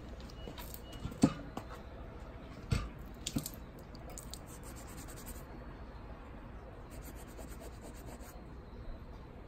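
Hands handling a wet motorcycle rear tyre at a nail hole being leak-checked with soapy water: a few sharp clicks and knocks in the first three and a half seconds, the loudest about a second in, then faint rubbing of a fingertip over the soapy tread.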